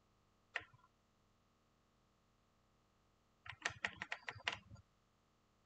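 Keys tapped on a computer keyboard: a single click about half a second in, then a quick run of about eight keystrokes near the end.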